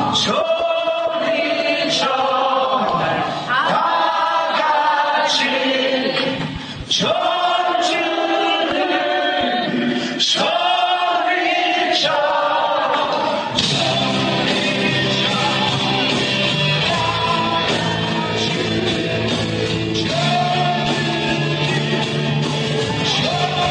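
Heavy metal band playing live with a man singing: vocals over sparse accented drum and cymbal hits about every two seconds, then the full band with heavy bass and guitars comes in about thirteen seconds in.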